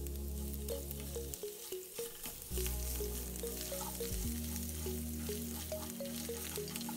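Cumin seeds and chopped aromatics sizzling and crackling in hot oil in a non-stick frying pan. A wooden spatula stirs them near the end. Background music plays throughout.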